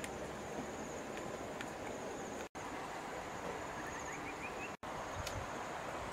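Outdoor rural ambience: a steady, high-pitched insect trill over a background hiss. A short run of rising chirps comes about four and a half seconds in, and the sound drops out for an instant twice.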